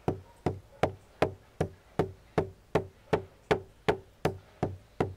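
Stone pestle pounding cinnamon bark in a stone mortar: a steady rhythm of sharp knocks, a little under three a second.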